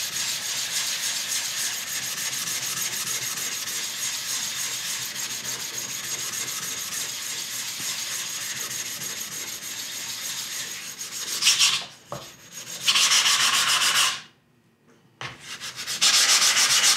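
A whetstone being flattened: a steady abrasive rub of stone on a flattening surface. About twelve seconds in it gives way to louder, harsher scraping passes with short pauses between them, as the stone's sharp edges are scraped off.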